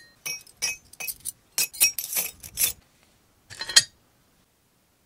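Scrap artillery rotation bands dropped piece by piece into a metal crucible, about ten sharp metallic clinks over three seconds and a last clattering pair near four seconds in.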